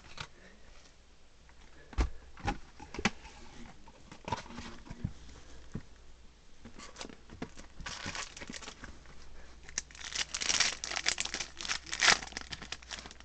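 Trading card booster box being handled and opened: a few sharp clicks and taps early on, then long stretches of crinkling and tearing of plastic and foil wrapping, loudest in the last few seconds as a foil booster pack is torn open.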